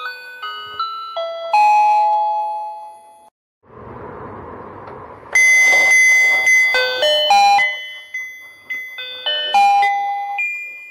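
Electronic beeping melody from a battery-powered rotating fishing game toy, with simple chime-like notes. The tune breaks off about three seconds in, and a short stretch of rough whirring noise follows. The melody starts again loudly about five seconds in.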